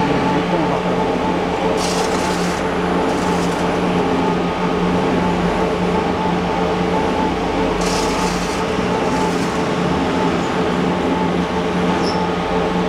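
A horizontal industrial blender running steadily, its 7.5 kW motor and gear reducer giving a loud, even mechanical hum. Brief hissing swishes come back at intervals, about every six seconds.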